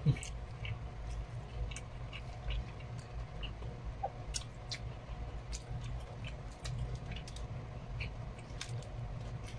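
People chewing food close to the microphone, with wet mouth clicks and lip smacks scattered throughout, over a steady low hum. A single thump right at the start.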